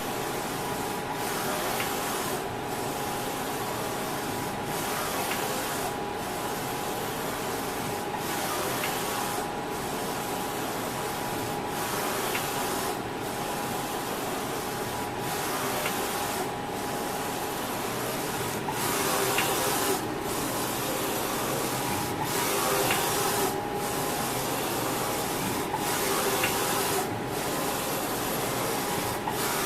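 Kingt KGT-LE-4550C UV flatbed printer with Ricoh GH2220 printheads printing: the print carriage sweeps back and forth with a steady whirring hiss, broken by a brief pause every one to two seconds as it reverses, over a steady hum.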